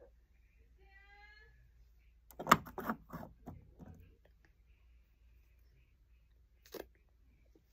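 A brief hummed note from a young girl about a second in, then a cluster of knocks and rubbing as her hand touches and handles the recording phone, and one sharp click near the end.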